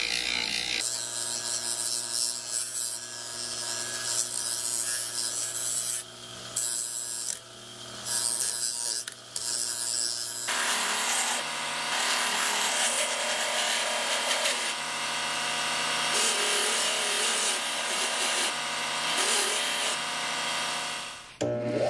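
Bench grinder running with the steel head of a Proto ball peen hammer pressed against its wheel: a steady motor hum under the hiss of the wheel grinding steel. The grinding dips briefly a few times near the middle, and the sound changes abruptly about a second in and again about halfway.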